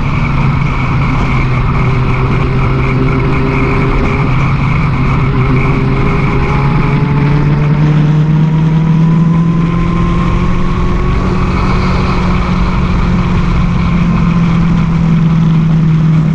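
Sport motorcycle's engine running under way at a steady pace, its note rising gently in the middle of the stretch as the bike picks up a little speed, with wind rumbling on the bike-mounted microphone.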